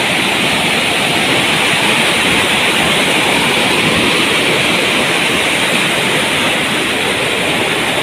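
Waterfall cascading over rock ledges: a steady, loud rush of water.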